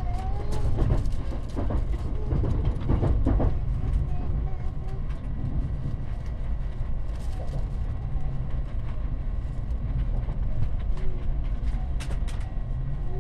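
Cabin sound of a JR Central N700S Shinkansen car running on the line: a steady deep rumble, with a cluster of clattering knocks in the first few seconds.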